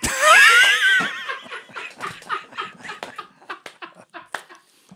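Men laughing hard: a loud, high-pitched rising laugh opens it, then it breaks into quick short bursts of laughter that die away toward the end.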